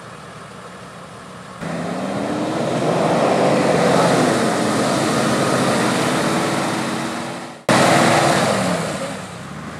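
4x4 vehicle engine revving hard, its pitch climbing, over a loud rushing noise. The sound jumps from a quieter steady engine sound to this loud revving about one and a half seconds in, and breaks off sharply near the end before going on loud and easing down.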